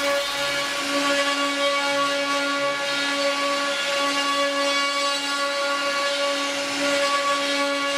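Multi-spindle 4-axis CNC router with rotary axes carving wooden cylinders: several spindle motors run together with a steady whine over the cutting noise of the bits in the turning wood.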